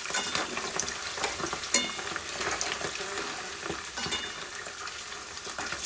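Meatballs deep-frying in a pot of hot oil: a steady crackling sizzle, stirred partway through, with a couple of short ringing clinks.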